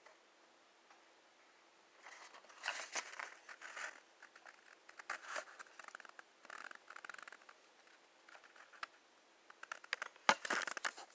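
Crinkling and tearing of packaging being handled, in irregular clusters of crackles that start about two seconds in and are loudest near the end.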